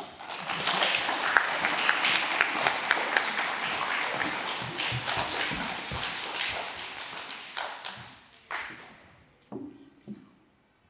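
Audience applauding, a dense patter of many hands that fades away after about eight seconds.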